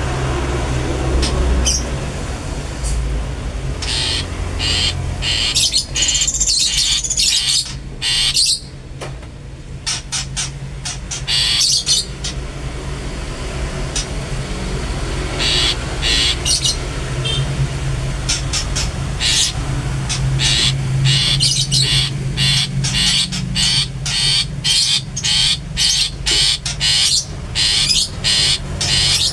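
Long-tailed shrike (cendet) calling in short repeated notes. The notes come in scattered groups, then about two-thirds of the way in settle into a fast regular series of about two a second. A steady low hum runs underneath.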